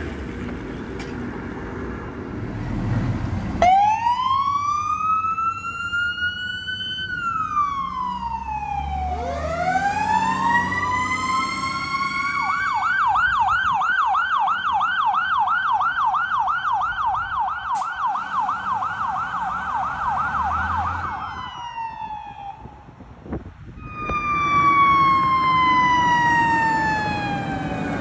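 Emergency vehicle sirens. A wail rises and falls, rises again, then switches to a fast yelp for about nine seconds. After a brief break, another wail falls slowly in pitch. Vehicle engine noise is heard before the siren starts.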